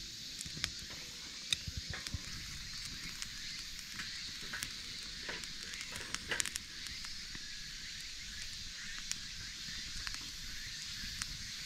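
Small wood campfire crackling and hissing in a metal fire stand. Scattered sharp clicks and knocks come as firewood is gripped and set in with metal fire tongs, most of them in the middle of the stretch.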